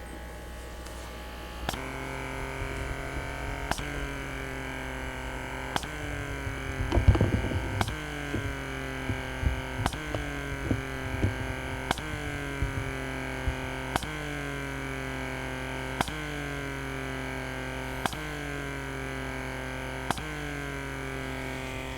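Background music: soft sustained chords, a new one about every two seconds, over a steady low hum. A short cluster of low thumps about seven seconds in.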